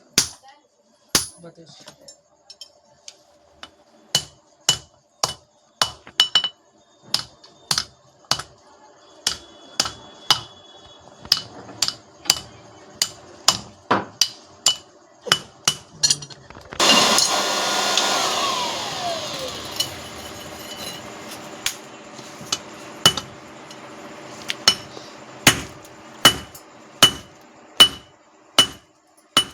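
Hand hammer striking steel on an anvil while forging a knife, single blows about once or twice a second, each with a short metallic ring. About two-thirds of the way in, a machine starts with a sudden loud rush and a falling whine, then keeps running more quietly under the hammer blows.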